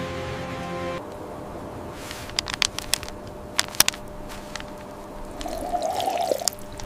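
Plastic water bottles crackling and clicking as they are handled, then water glugging in a bottle as it is tipped up to drink, about five and a half seconds in. A steady musical chord plays briefly and stops about a second in.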